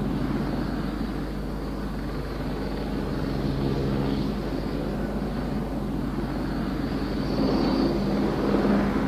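Hiller flying platform's engines and ducted-fan rotors running in a steady drone while it hovers, a low hum of several pitches under a rushing wash. It grows a little louder near the end.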